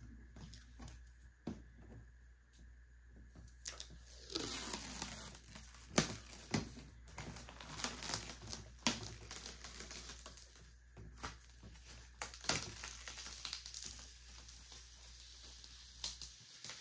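Protective plastic film being peeled off the glossy top panel of a Prusa Core One enclosure: a fingernail picks at the corner in small scattered clicks, then from about four seconds in the film comes away in a long crackling peel with sharp snaps and crinkles.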